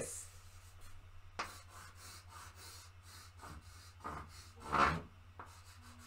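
Chalk scratching on a blackboard in a few short strokes, the loudest about five seconds in.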